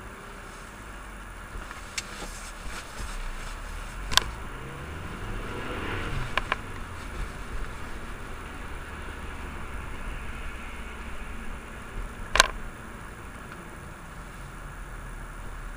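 Car driving, heard from inside the cabin: steady engine and road rumble with a light hiss. The engine note rises and falls in pitch around the middle. A few sharp knocks cut through, the loudest about four seconds in and again near the end.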